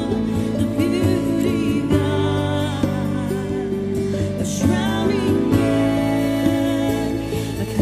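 Slow worship song: sustained instrumental chords with a voice singing long, wavering notes over them.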